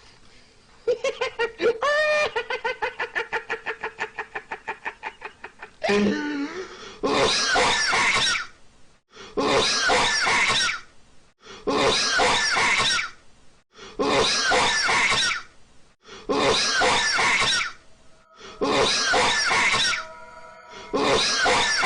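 A man's cough, edited and looped. First comes a fast, pitched stutter of cut-up repeats, then the same coughing burst again and again at an even pace, about every two seconds. Held musical notes join in near the end.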